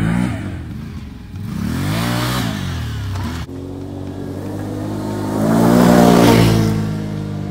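ATV engines revving, the pitch rising and falling twice in the first three seconds. After an abrupt change, a quad approaches and passes close by, loudest about six seconds in, its engine note then dropping as it goes away.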